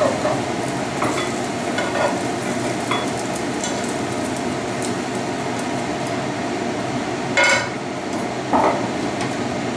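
Eggs frying in an oiled pan, with a steady sizzle, while a silicone spatula stirs and taps against the pan a few times. Near the end, a louder scrape and then a knock as the eggs are pushed out of the tipped pan into a metal bowl.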